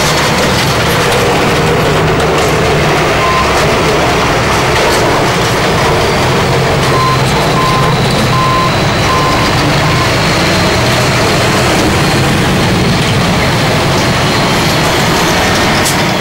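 The supercharged V8 engines of a modified pulling tractor idle loudly and steadily. A few short, high beeps sound about halfway through.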